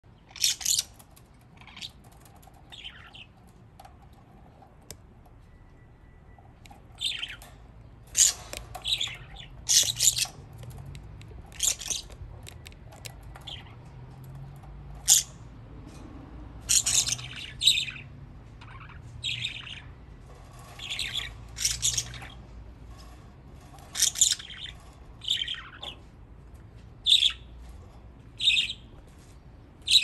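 Budgerigars chirping and squawking in short, sharp calls, coming every second or two.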